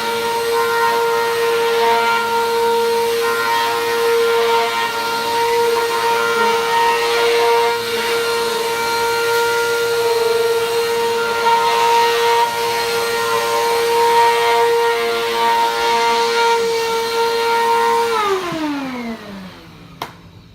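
Vacuum cleaner motor running with a steady high whine, then switched off about eighteen seconds in, its pitch falling as the motor spins down, followed by a single click.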